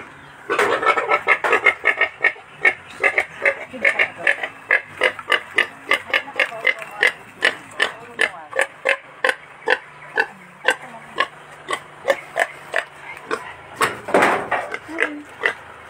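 A pig grunting steadily in short, even grunts, about three a second. One louder, longer burst comes about fourteen seconds in.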